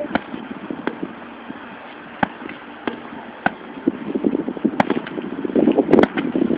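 Irregular sharp knocks of workout equipment striking during bootcamp exercises, about one every half second to second and a half. A rough rumble builds from about four seconds in.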